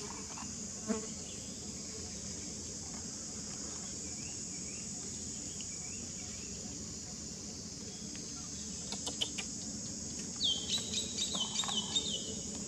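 Steady high-pitched insect drone. Near the end comes a run of about six short, high squeaks, each falling in pitch, with a single brief knock about a second in.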